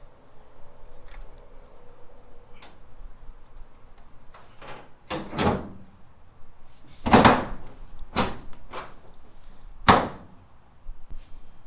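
Third-gen Camaro cowl hood being lowered and pushed down onto its hood pins: a series of about six thuds and clunks, the loudest about seven seconds in.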